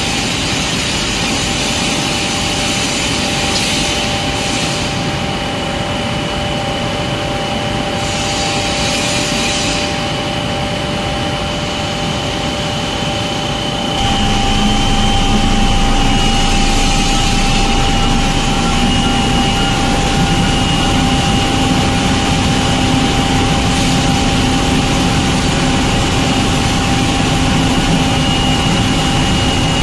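Steady machine hum with constant whining tones from an automatic glass loading and cutting line. About halfway through it gets louder and a lower hum joins in.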